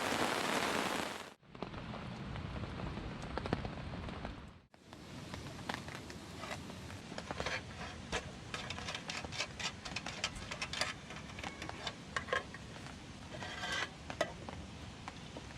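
Rain falling, loud and even at first. After two abrupt cuts it becomes a quieter patter with many scattered sharp ticks.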